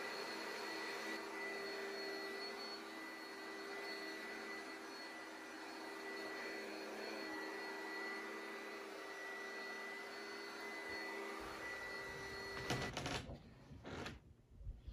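Oreck XL upright vacuum cleaner running steadily, with a constant high whine over its motor noise. It stops suddenly about thirteen seconds in, giving way to bedding rustling and a few soft thumps.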